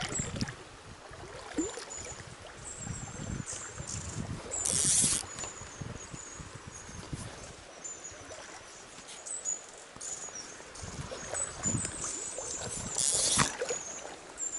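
Riverside ambience with repeated high chirping throughout, over low, uneven rumbling. Two brief hissing swishes of the fly line, about five seconds in and again near the end, are the loudest sounds.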